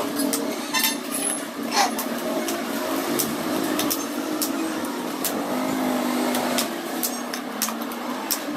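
Bolt cutters snapping through the rusted steel spokes of a motorcycle wheel: a sharp metallic snap as each spoke parts, coming irregularly about once a second. A steady background hum of street traffic runs under the snaps.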